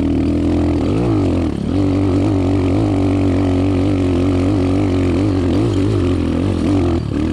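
Motoland XT250 HS dirt bike's air-cooled single-cylinder four-stroke engine running at low revs, with a quick rise and fall in revs about a second in, then steady, easing off slightly near the end.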